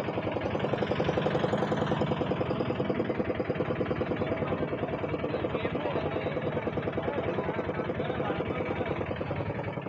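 An engine idling close by, a steady fast throb that keeps on without a break.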